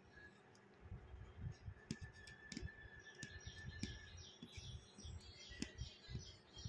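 Aari hook needle punching in and out of stretched fabric while working chain stitch. It gives faint, irregular clicks and soft taps, about two or three a second.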